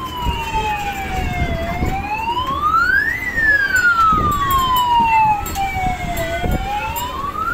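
Siren wail from a children's fairground roundabout with toy fire engines and police vehicles: one tone gliding slowly down, then up, then down again, rising faster than it falls, about once every four to five seconds.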